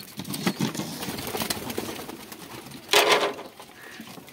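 Domestic pigeons cooing and shuffling in wooden loft nest boxes, with small knocks and rustles throughout and one short, loud burst of noise about three seconds in.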